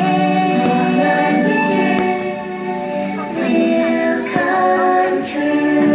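Fireworks-show soundtrack playing loudly: sung music with a choir on long held notes. A few faint pops from the fireworks come through under it.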